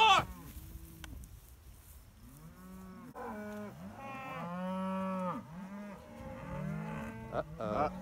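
Several Angus cattle mooing, long calls one after another starting about two and a half seconds in.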